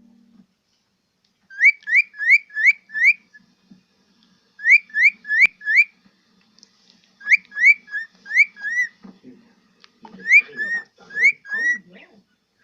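A pet bird whistling in quick runs of short rising notes, four or five at a time, with pauses between the runs. A sharp click comes about five seconds in. A faint low voice joins in over the last few seconds.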